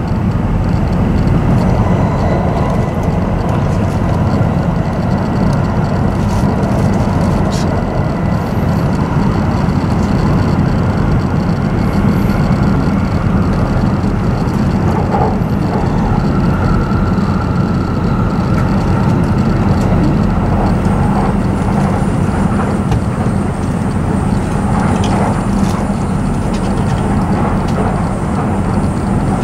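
Steady running noise inside the cabin of an E7 series shinkansen train: a low, even rumble of wheels on rail with a haze of track and air noise, unchanging throughout.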